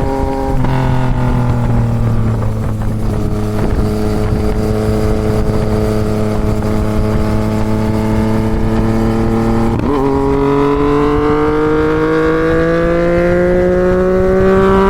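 Yamaha MT-09's three-cylinder engine through a full Toce exhaust, pulling under load: it shifts up about half a second in and climbs slowly in that gear. About ten seconds in there is another gear change, and then a steady rising pull in revs to near the end.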